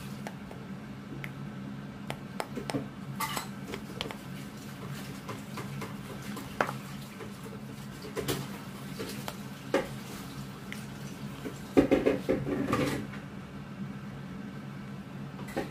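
Hands kneading and poking slime in a thin plastic tub: scattered clicks, sticky crackles and taps on the plastic, busiest in a cluster toward the end. A low steady hum runs underneath.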